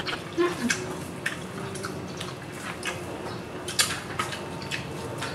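Eating by hand: shrimp shells being peeled and picked apart over a plastic table cover, giving scattered wet clicks and crackles.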